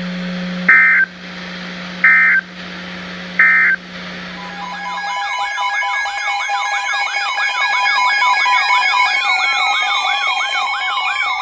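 Three short Emergency Alert System end-of-message data bursts, harsh two-tone warbles about a second and a half apart, over a low steady hum. About four and a half seconds in, a layered wailing siren tone starts, rising and falling about twice a second over steady alert tones, and carries on.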